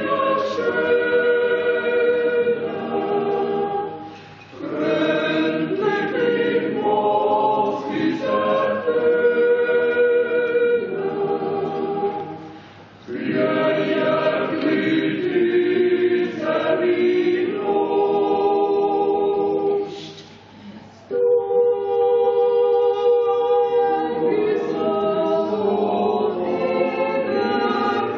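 A choir singing held chords in long phrases, with short breaths between phrases about four, twelve and twenty seconds in.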